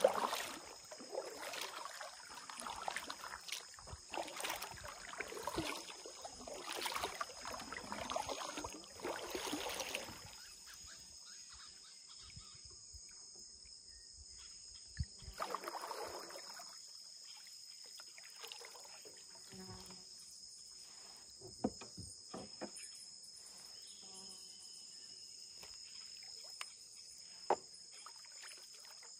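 Kayak paddle strokes dipping and splashing in the water, about one every second and a half for the first ten seconds, with one more stroke near the middle. A steady high-pitched drone of insects runs underneath, and a few sharp clicks come in the later part.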